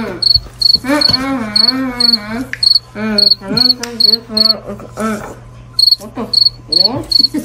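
Cricket chirping sound effect, short evenly spaced chirps about three a second: the comedy cue for an awkward silence. Under it, a voice makes wordless, wavering, mouth-closed sounds.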